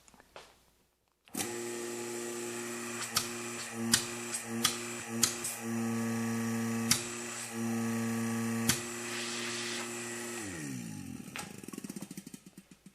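Rebuilt Gast rotary-vane vacuum pump starting up suddenly and running with a steady electric hum, broken by several sharp clicks. Near the end it is switched off, and the hum falls in pitch as the pump spins down.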